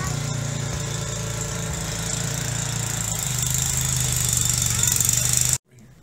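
Engine or motor running steadily with an even low hum, stopping suddenly near the end.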